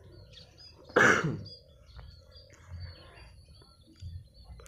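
A man clears his throat once, briefly, about a second in. Faint bird chirps sound in the background.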